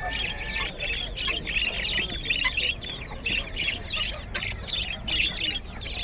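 Caged flock of budgerigars chattering: many quick, overlapping high chirps and warbles.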